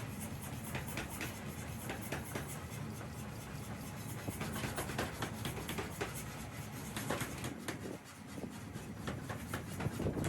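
Metalworking workshop noise: irregular sharp clicks and scraping of metal over a steady low hum.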